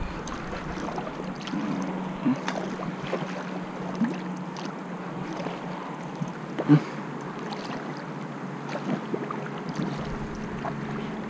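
Kayak paddle strokes dipping and splashing in calm river water, with a few short, light knocks, the loudest a little before seven seconds in.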